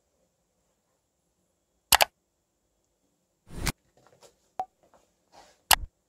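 A few sharp clicks and knocks: a loud double click about two seconds in, a short rustling swell just past halfway with faint ticks after it, and a last sharp click near the end.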